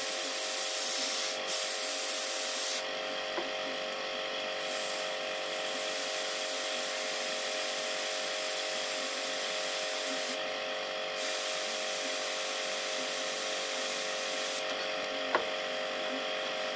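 Airbrush hissing as compressed air sprays paint, the hiss thinning out three times as the trigger is eased back, over a steady hum. A single sharp tick comes near the end.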